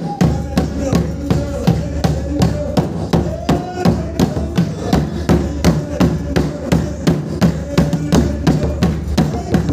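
Singing over a fast, steady drum beat, about three strokes a second: a Mizo spiritual song (thlarau lam zai).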